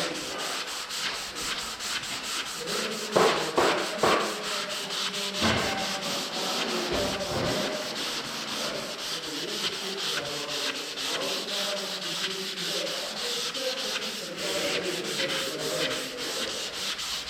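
180-grit sandpaper rubbing over cured body filler on a van panel, in quick, even back-and-forth strokes. Two louder knocks come a few seconds in.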